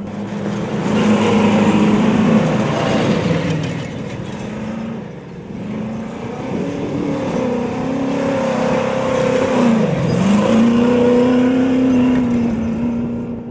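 Desert-racing pickup truck engine running hard, its pitch rising and falling with the throttle; the revs drop sharply and climb back about ten seconds in. The sound grows louder and softer as the truck works over the course, then fades at the end.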